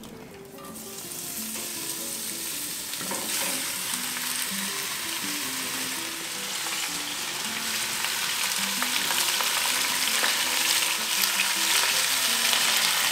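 Beef short ribs sizzling as they fry in hot olive oil in a cast-iron potjie pot over a wood fire. The sizzle builds from about a second in and gets louder toward the end.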